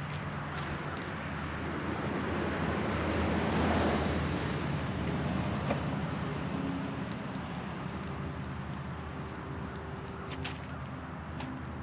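A motor vehicle passing by, swelling to its loudest about four seconds in and fading away, over a steady low engine-like hum.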